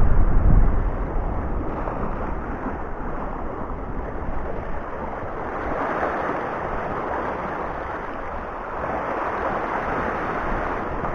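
Sea waves washing and foaming over shallow rocks, a steady rush that swells and eases, with wind buffeting the microphone in the first second.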